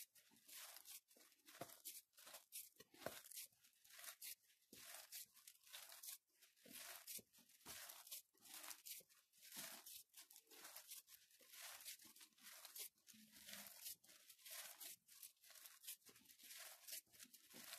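Faint, repeated squishing and crunching of a hand kneading crumbly wheat-bran and coconut dough in a bowl, one short stroke after another, as the dough is worked until it holds together.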